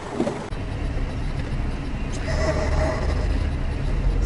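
Low engine and road rumble inside a moving car, as picked up by a dashboard camera; the rumble grows louder about two seconds in.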